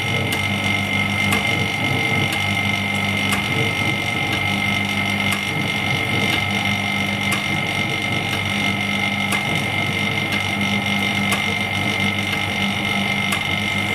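The vacuum pump of an LCD screen separator machine runs with a steady hum and a steady high tone, with a faint tick about once a second.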